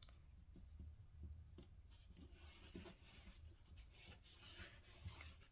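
Near silence, with faint taps and rubbing of fingers pressing a die-cut paper letter down onto a cardstock circle.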